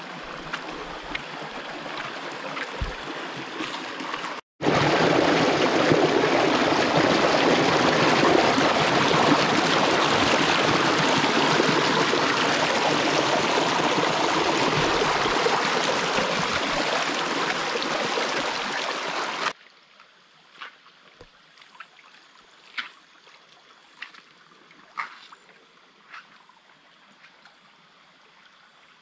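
Shallow creek water trickling and babbling over rocks, much louder and closer after a brief break about four seconds in. About two-thirds of the way through it stops suddenly, leaving quiet with a few faint short sharp sounds.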